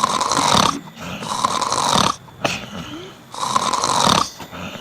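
A man snoring in a run of long snores, each about a second long with short gaps between, still going even though his mouth has been taped shut.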